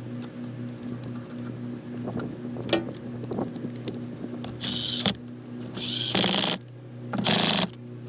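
Small hand-tool work on motorcycle battery terminals: scattered light metal clicks, then three short bursts of rapid ratcheting clicks in the second half, as the terminal bolts are tightened.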